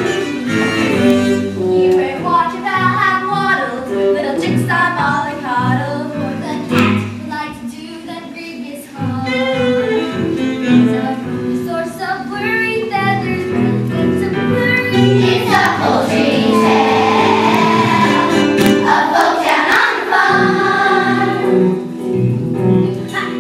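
Children's voices singing a musical-theatre song over instrumental accompaniment. The music dips briefly about eight seconds in and grows fuller and louder in the second half.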